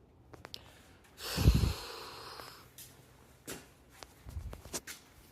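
A woman breathing between sneezes in a sneezing fit: one sharp, loud burst of breath about a second in that trails off into a breathy exhale, followed by a few small clicks and short breaths.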